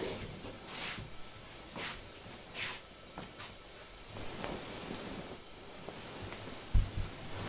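Feet in tabi socks brushing and sliding over tatami mats, with the rustle of a hakama and kimono, as a person walks into a small room and kneels. A single low thump near the end.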